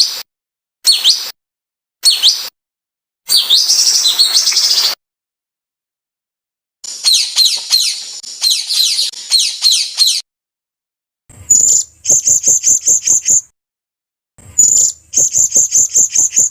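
A spliced bird-song compilation used for training songbirds: short high sweeping calls about once a second, then a fast run of sweeping whistled notes, then rapid sharp chattering notes near the end, each clip cut off into dead silence.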